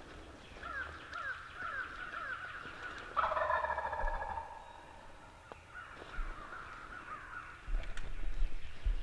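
A wild turkey gobbler gobbles once, a loud rattling call lasting over a second, about three seconds in. Strings of short repeated calls from other birds come before and after it.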